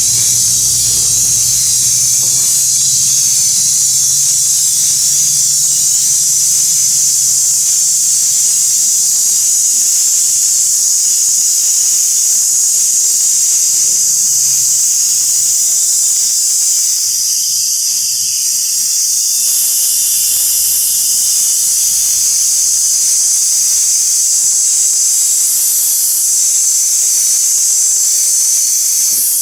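Pressurised gas hissing steadily and loudly, with a brief dip in level about two-thirds of the way through.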